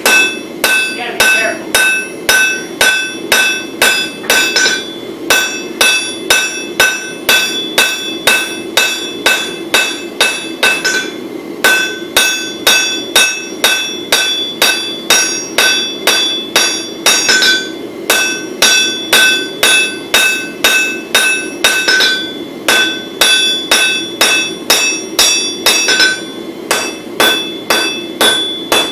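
Hand hammer striking hot wootz steel on an anvil: ringing blows, about two a second, in runs of ten or so separated by brief pauses, over a steady low hum.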